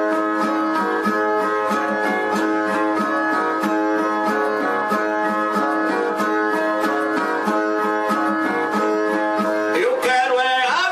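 Brazilian viola plucked in a steady, rhythmic repeating pattern, the instrumental lead-in to a sung repente. A voice comes in near the end.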